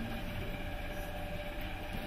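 Steady droning soundtrack: a low rumble with one held mid-pitched tone, unchanging throughout.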